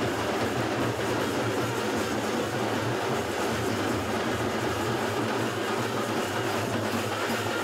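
Steady, even din of a packed railway platform crowding around a standing train.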